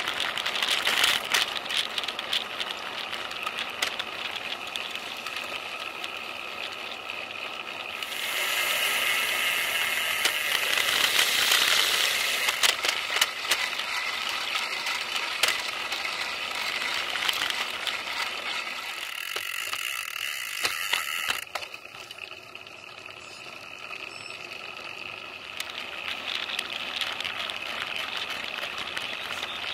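Riding noise picked up by a bike-mounted camera on a moving road bike: steady tyre and wind noise with frequent rattling clicks from the bike and mount. The noise changes abruptly twice, about 8 and 21 seconds in.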